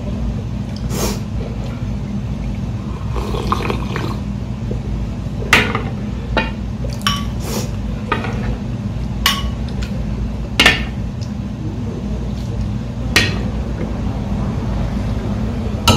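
Metal ladle scooping ramen broth from a large bowl and pouring it into a small ceramic bowl, with splashing liquid and about ten sharp clinks of the ladle against the bowls, over a steady low hum.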